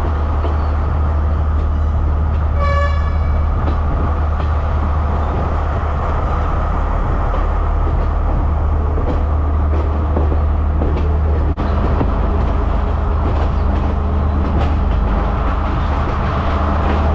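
Diesel passenger train running with a steady low rumble, its horn giving a short toot about three seconds in.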